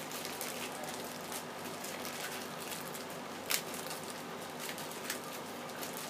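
Packaging being handled, rustling and crackling softly, with a sharper click about three and a half seconds in.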